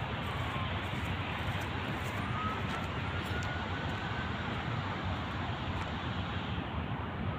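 Steady outdoor noise of wind on the microphone and distant traffic. A faint thin tone rises slowly for about two seconds, starting about two seconds in.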